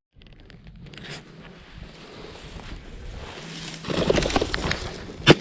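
A rushing noise that swells about four seconds in, then a single sharp shotgun shot near the end.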